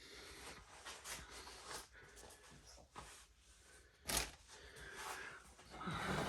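Faint handling sounds: light clicks and rustling as small parts and tools are moved about, with one sharper click about four seconds in.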